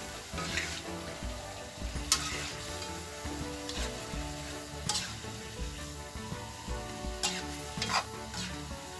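Freshwater mussels and spice paste sizzling in a wok over a gas flame while a metal spatula stirs them, with several sharp scrapes of the spatula against the pan.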